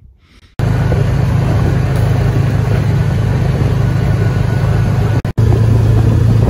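Engine of an off-road side-by-side running steadily with a low hum as it drives across lake ice. The sound starts abruptly about half a second in and cuts out for an instant about five seconds in before carrying on.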